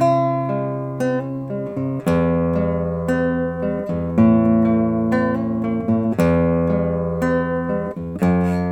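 Solo acoustic guitar played fingerstyle: a slow ballad melody of plucked notes over ringing bass notes and chords, a new stroke about once a second.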